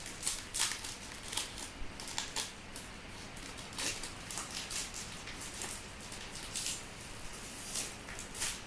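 A Yu-Gi-Oh! Premium Gold: Infinite Gold pack being opened and its cards handled. The wrapper and cards crinkle and rustle in a run of short, irregular crackles.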